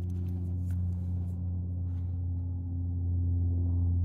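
A steady low hum with a few steady tones above it, and a few faint light clicks in the first two seconds.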